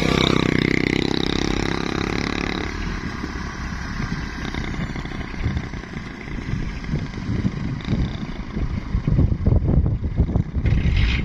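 Heavily loaded truck's engine running, higher and steadier for the first two or three seconds, then dropping to a lower, uneven rumble.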